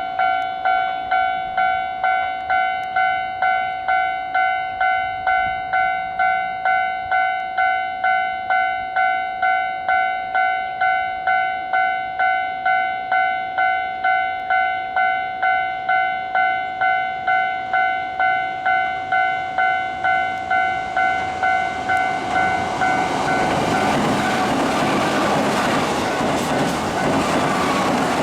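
Japanese railway level-crossing warning bell ringing steadily, about two dings a second. About three-quarters of the way through, a Keihan 2200-series electric train arrives and its loud running noise takes over and drowns the bell.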